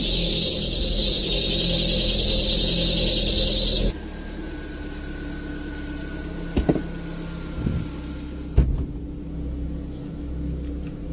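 Car engine running with a loud high-pitched hiss over its low hum. The engine noise cuts off suddenly about four seconds in, leaving a quieter low hum, a faint steady tone and a few knocks.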